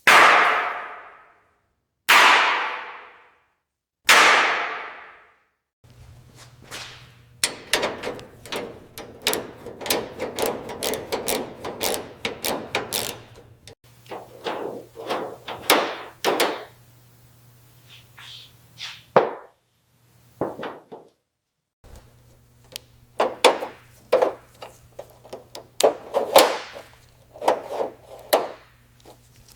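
Three sharp hits about two seconds apart, each trailing off. Then a long run of quick knocks and clicks over a low steady hum, which drops out briefly twice.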